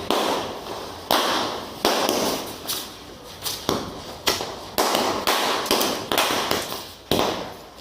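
Firecrackers going off one after another: about ten sharp bangs at uneven intervals, each trailing off in a fading echo.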